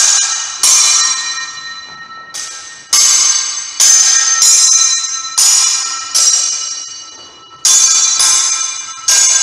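Steel longswords clashing blade on blade during free sparring: about ten sharp strikes, irregularly spaced, each ringing out with a high bell-like tone that fades over a second or so.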